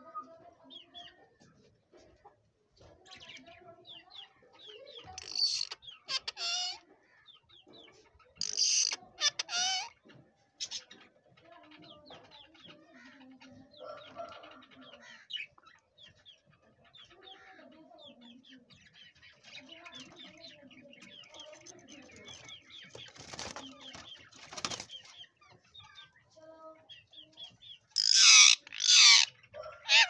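Rose-ringed parakeet calling: loud screeches in pairs about 5 s in, about 9 s in and near the end, with softer chattering calls between.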